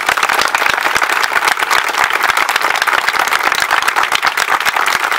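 A crowd of a few dozen people applauding, a dense and steady clapping.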